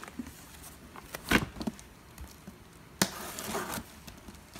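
A cardboard shipping box being handled: a hollow knock and thud about a second in, then a sharp tap and a short scraping rustle of cardboard around three seconds in, with small clicks between.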